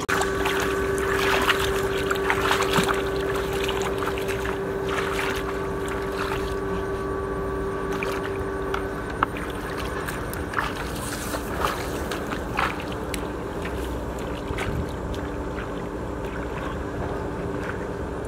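Sloshing and splashing of feet and hands in shallow muddy paddy water, with scattered knocks, over a steady hum that weakens about nine seconds in.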